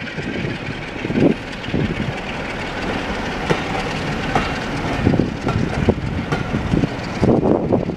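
Locomotive-hauled passenger coaches rolling past over pointwork and rail joints: a steady rumble of wheels on rail with irregular clattering knocks as the wheels cross the joints.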